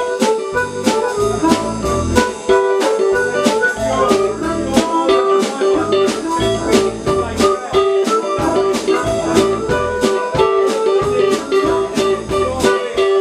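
Live blues-rock band playing: electric guitar lines over drums keeping a steady beat.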